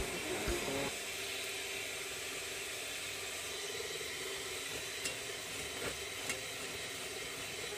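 Electric hand mixer running steadily at medium speed, its beaters whisking foamy egg whites in a stainless-steel bowl, with a few faint ticks.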